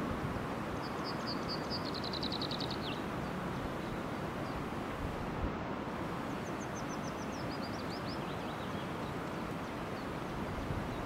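A small songbird sings two short phrases of quick, high repeated notes, the first about a second in ending in a downward slur and the second midway stepping down in pitch, over a steady outdoor background noise.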